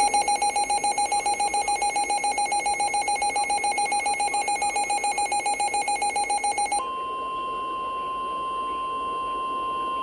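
Weather radio alert: rapid electronic beeping, about eight beeps a second, for roughly seven seconds. It then switches to the steady 1050 Hz NOAA Weather Radio warning alarm tone, which signals an incoming warning, here a tornado warning.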